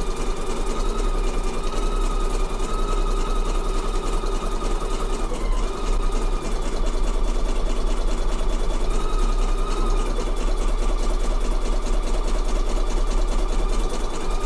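Pfaff Creative computerised embroidery machine stitching freestanding lace with fine thread on water-soluble stabilizer: a fast steady needle ticking over the whine of the motor, which falters briefly about five or six seconds in.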